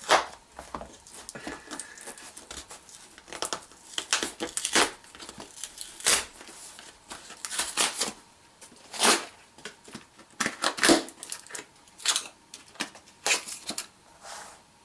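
Packaging being torn and crinkled open by hand: a string of irregular ripping and rustling noises, some sharper tears standing out louder than the rest.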